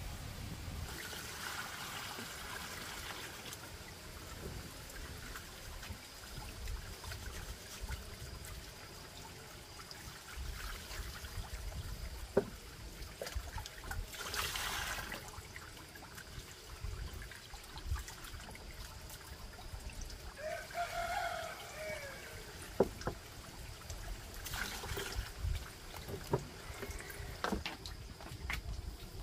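Water pouring and trickling in a few short spells, with scattered knocks and a brief pitched call about two-thirds of the way in.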